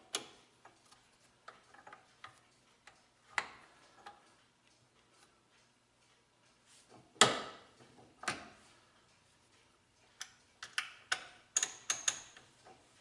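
Small metal tool parts being handled and hand-tightened on a lathe grinding attachment as a grinding wheel is fitted to its spindle: scattered clicks and knocks, the loudest a knock about seven seconds in, with a quick run of small clicks near the end.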